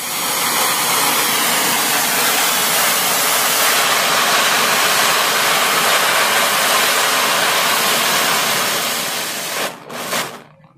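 Homemade gas torch burning at a syringe needle tip, its jet flame hissing steadily and loudly. The gas comes from a chemical reaction in a sealed bottle. The hiss stops shortly before the end, after one short burst.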